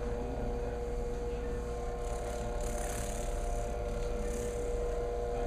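Electric massage machine running with a steady motor hum as it is worked into the calf muscle.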